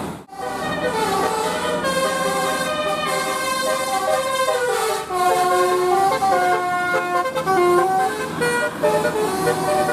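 Bus 'telolet' horn, a set of multi-tone air horns playing a tune of held notes that step up and down, several sounding together, with a few short sliding notes.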